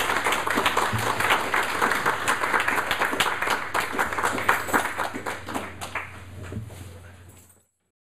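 Audience applauding, a dense patter of many hands clapping that fades over the last few seconds and cuts off abruptly near the end.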